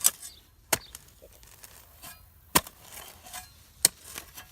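A digging tool strikes into the ground: four sharp chops at uneven intervals, with fainter scraping between them.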